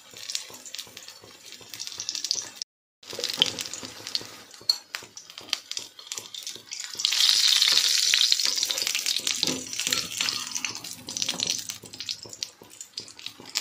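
Oil sizzling and crackling as a vegetable tikki shallow-fries in a small non-stick pan, with many small pops. The sizzle cuts out briefly about three seconds in and is loudest for a couple of seconds in the middle.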